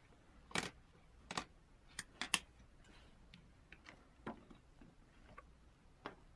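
Hands handling a paper instruction sheet and a plastic screen protector on a wooden surface: a handful of faint, separate clicks and taps.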